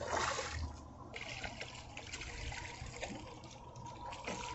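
A hooked largemouth bass splashing and thrashing at the water's surface, in irregular bursts: a strong splash right at the start, a run of splashing about a second in, and another splash near the end.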